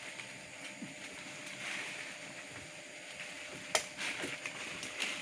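Leaves and branches of a mangosteen tree rustling as a person climbs and moves through it, with a sharp click about three-quarters of the way in and a few lighter ones after.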